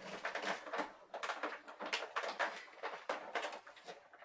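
Stiff plastic toy packaging crackling and clicking in irregular bursts as hands work a twisted wire tie loose to free the model starship.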